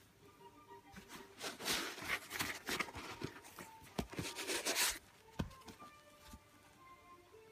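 Paper stuffing and leather sneaker rustling and crinkling as a hand handles the inside of a shoe, in a busy stretch from about one to five seconds in, followed by a few soft knocks.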